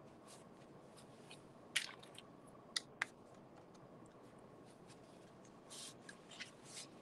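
Faint handling noise from a corrugated-cardboard craft and wooden stir sticks: a few sharp clicks and taps about two and three seconds in, then short scraping rustles near the end.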